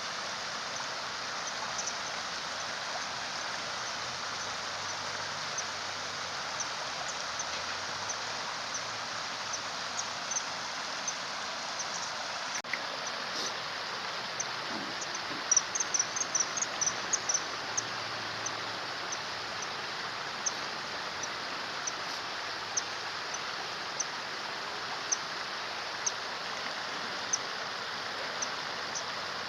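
Steady running water of a stream, with short, very high-pitched calls from a common kingfisher scattered through it. About halfway, the calls come in a quick flurry.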